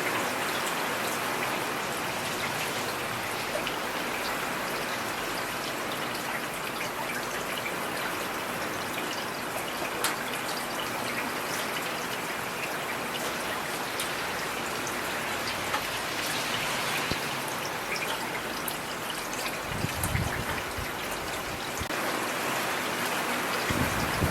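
Steady rain falling on a street, with scattered sharp drip ticks over an even hiss. A brief low rumble comes about 20 seconds in.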